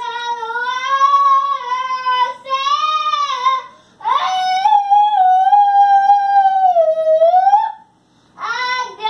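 Pet dog howling ('singing') in long, wavering drawn-out howls: a first long howl, then after a short breath a second, higher one that dips near its end, and another starting near the end.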